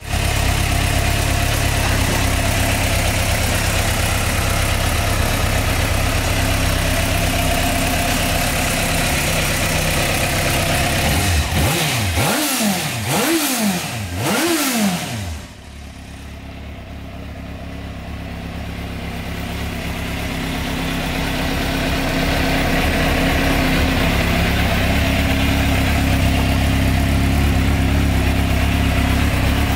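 2003 Suzuki GSX-R600's inline-four engine idling, blipped three times in quick succession about twelve to fifteen seconds in. The sound then drops away suddenly and slowly swells back to a steady idle.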